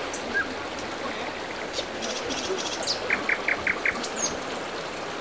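Shallow river rushing steadily over rocks, with birds calling over it: a couple of short chirps at the start, then a quick run of five notes about three seconds in.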